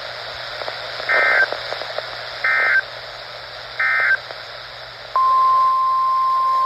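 Three short screeching EAS/SAME digital data bursts, about a second and a third apart. These are the end-of-message code after a NOAA Weather Radio flash flood warning. About five seconds in, the weather radio's steady single-pitched warning alarm tone starts, signalling a new alert.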